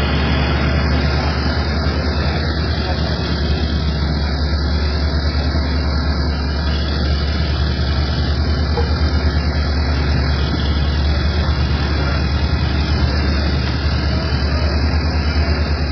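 A steady low engine hum, like a vehicle or heavy machine running without change.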